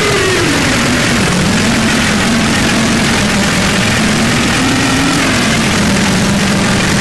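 Harsh noise music: a loud, unbroken wall of distorted static over a low droning tone that wavers up and down in pitch.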